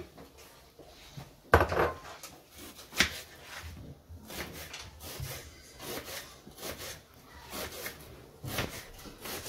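Kitchen knife cutting an onion on a wooden cutting board: a heavy knock about a second and a half in, a sharp click at about three seconds, then steady knife strokes on the board about twice a second.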